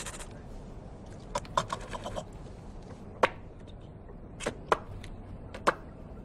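Sharp mouth clicks and smacks: a quick run of about half a dozen a second and a half in, then single clicks spaced out over the next few seconds, over the low steady rumble of a train cabin.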